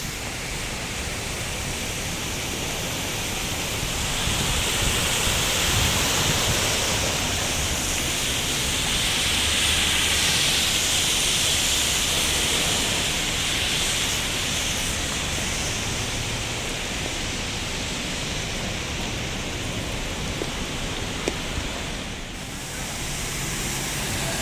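Heavy rain falling: a steady hiss that swells a little for a while and then eases back.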